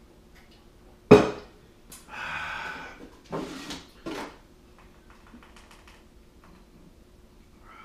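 A sharp knock about a second in, then a few short spells of clattering and rattling as household items are handled and a drawer is pulled open and rummaged through.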